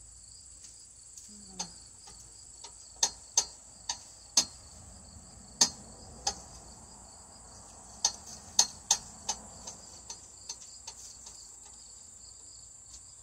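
Insects chirring in a steady high drone, with irregular sharp clicks and knocks scattered over it, the loudest in two clusters about three to four seconds in and eight to nine seconds in.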